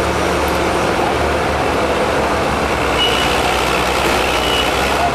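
Steady running machinery with a low hum. A thin high beep tone sounds a little past the middle and lasts about a second and a half.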